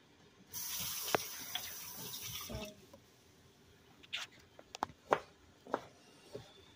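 Chef's knife chopping artichoke hearts on a cutting board: a string of short, sharp knocks in the second half. Before that, starting about half a second in, a steady hiss runs for about two seconds.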